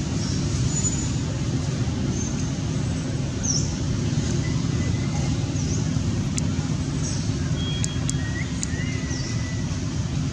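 Steady low rumble of background noise, with a few faint short high chirps and a couple of sharp clicks after the middle.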